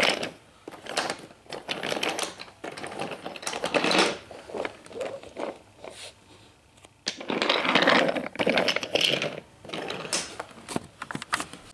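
Wooden toy trains pushed by hand along wooden toy track, the wheels rolling and clattering over the track with clicks and knocks, in several uneven runs with short pauses between them.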